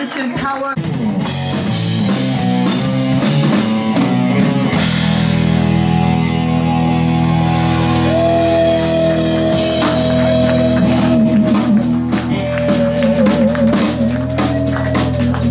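Live rock band playing: electric guitar, bass guitar and drum kit hold sustained chords under cymbal washes, with a long held lead note, wavering with vibrato, entering about eight seconds in.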